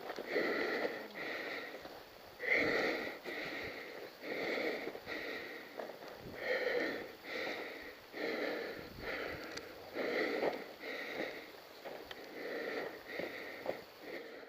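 A person breathing hard and fast close to the microphone, about one breath in or out every second, steady throughout.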